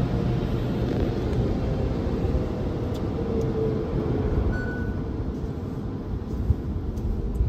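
Soft-cloth automatic car wash heard from inside the car: hanging cloth strips brushing over the rear window and roof, over a steady low rumble.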